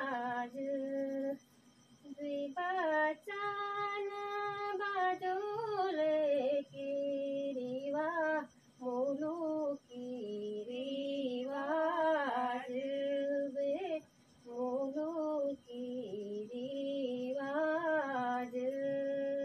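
A woman singing a Garhwali folk song with no accompaniment. She holds long notes with a wavering pitch, and the phrases are broken by short pauses for breath.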